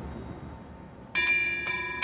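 Korean temple wind bell (pungyeong) hanging from the eaves, its clapper striking about a second in and again half a second later. Each strike sets off several steady metallic ringing tones over a low background rumble.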